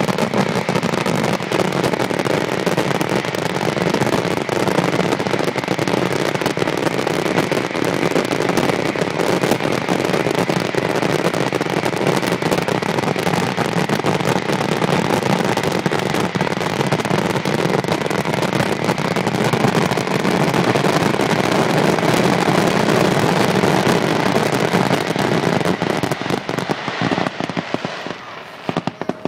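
Aerial fireworks display in a dense, continuous barrage, bursts and crackling packed so closely that they merge into one loud, steady din. Near the end it thins out and dies away to a few separate bangs.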